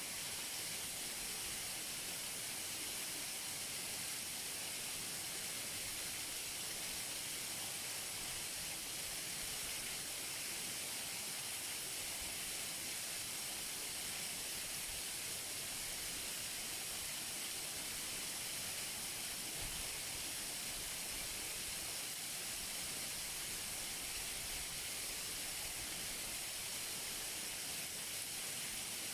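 Close-up waterfall: water falling and splashing in a steady, unbroken rush with a strong hiss.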